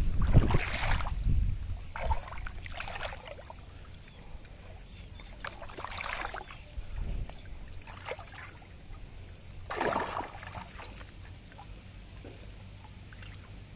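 Shallow muddy water splashing and sloshing as hands and arms move inside a bamboo polo fish trap, feeling for fish. It comes in irregular bursts, loudest at the start and again about ten seconds in.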